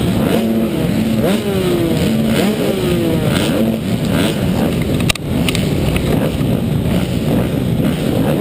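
Two-stroke motocross bikes, the camera rider's Yamaha YZ125 among them, revving on the start line, their engines blipped up over and over about once a second while they wait behind the gate. A sharp knock about halfway through.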